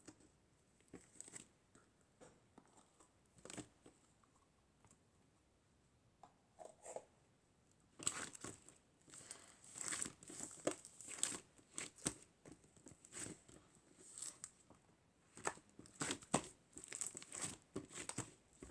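Crinkling and tearing of a handled crinkly material: a few scattered soft crackles at first, then from about eight seconds in a dense, continuous run of crinkling.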